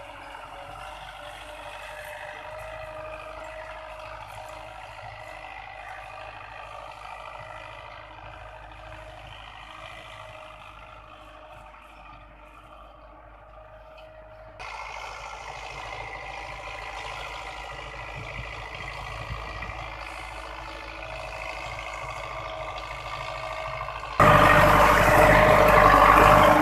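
Belarus 510 tractor's diesel engine running steadily under load while pulling a disc harrow through tilled soil. About 24 seconds in it turns much louder, heard from inside the tractor's cab.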